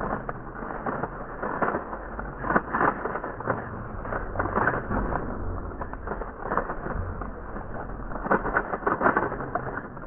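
Slowed-down clatter of a speedcube being turned fast: an irregular run of dull, muffled clicks and cracks from the plastic layers snapping round.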